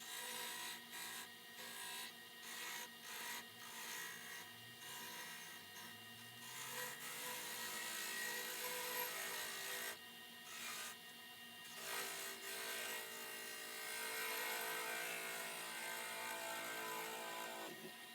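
Lathe running while a Morse-taper mandrel is shaped on it, tool or file scraping against the spinning work: first a string of short rasping strokes, then longer continuous scraping over the steady hum of the machine, stopping near the end.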